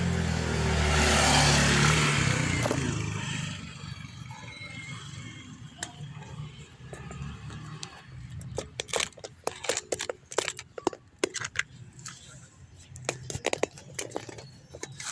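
A motor vehicle passes close by, its engine hum and noise swelling and fading over the first three seconds. From about eight seconds in comes a quick run of light clicks and clinks, like small metal parts or tools being handled.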